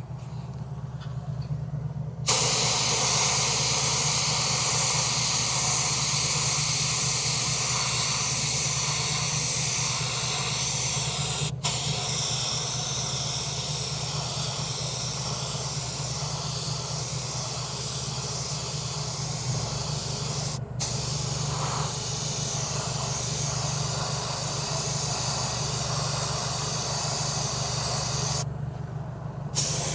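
Steady hiss of medium-silver base-coat paint being sprayed onto a repaired alloy wheel, starting about two seconds in, with two brief breaks and stopping shortly before the end. A low steady hum runs underneath throughout.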